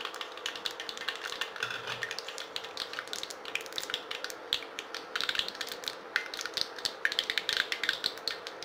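Dried red chillies and mustard seeds frying in hot sesame oil for a tempering: rapid crackling and popping, thicker in the second half, while a wooden spatula stirs. A steady faint hum runs underneath.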